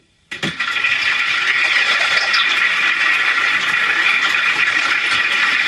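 Loud, steady rushing of water, like a toilet flushing. It starts abruptly with a couple of clicks about half a second in.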